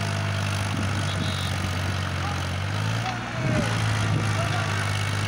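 Powertrac 439 tractor's diesel engine running hard at high revs under heavy load, the tractor stuck in mud. The engine note wavers briefly about three and a half seconds in, then carries on.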